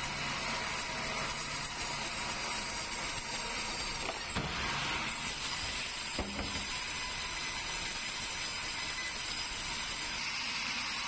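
Sawmill machinery running steadily while sawing keruing timber, with two brief knocks about four and six seconds in.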